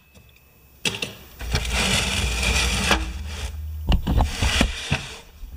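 Plastic elevator mechanism of a Fisher-Price toy garage running down: a click about a second in, then a steady rattling whir for about three and a half seconds, with a few knocks near the end as it travels.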